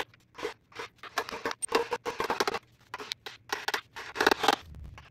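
Hammer tapping along the edge of a 1966 MG Midget engine's glued-on oil pan, a run of short, uneven knocks, a few a second, some with a brief metallic ring, breaking the sealant so the pan can come off.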